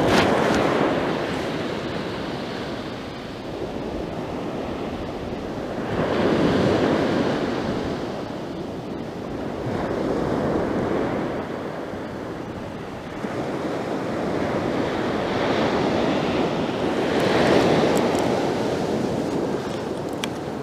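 Sea waves breaking on the beach, the surf swelling and falling away in slow surges every few seconds.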